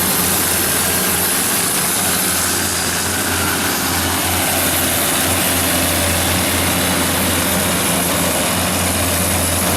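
SDMO / John Deere 170 kW diesel generator set running steadily on its John Deere 6068HF150 six-cylinder diesel at constant speed, a loud even drone with a low hum and no change in pitch.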